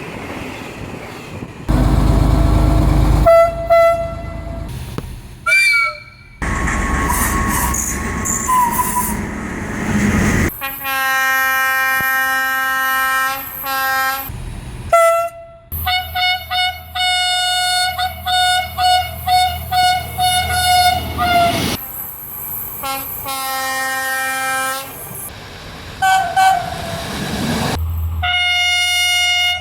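A run of horn blasts from several Italian trains, cut one after another: long held blasts and, in the middle, a quick string of short toots, with the noise of a train running in the first part.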